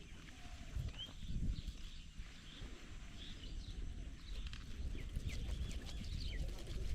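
Scattered short, high chirping calls of small animals, each a quick upward slide, over a low rumbling with soft knocks.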